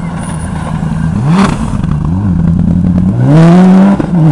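Rally car driven flat out and passing close by, its engine revving hard with the pitch climbing twice through the gears. It gets loudest as the car goes past about three seconds in, with a short dip around four seconds in like a gear change.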